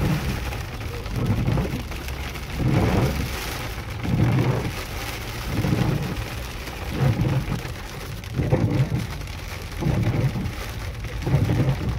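Heavy rain and hail drumming on a car's roof and windscreen, heard from inside the cabin. The windscreen wipers sweep about once every second and a half, each pass a low swell in the noise.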